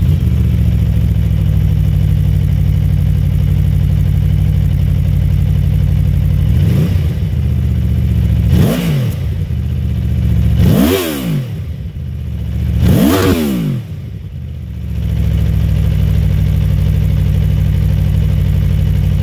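Aprilia Tuono V4 Factory's V4 engine through its stock Euro 5 exhaust, running steadily at low revs, then revving up and dropping back four times in quick succession from about six seconds in. It settles back to steady low revs after about fifteen seconds.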